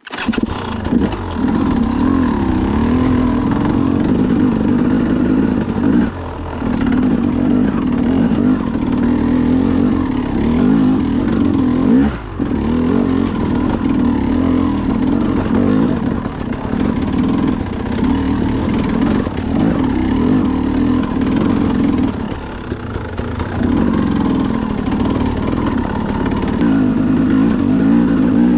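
Dirt bike engine being ridden along a rough trail, the engine note rising and falling with the throttle and easing off briefly about six, twelve and twenty-two seconds in.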